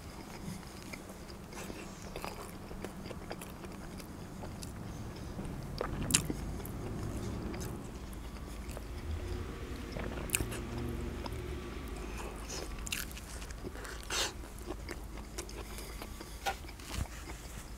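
A person chewing mouthfuls of a double bacon cheeseburger, with scattered sharp wet mouth clicks.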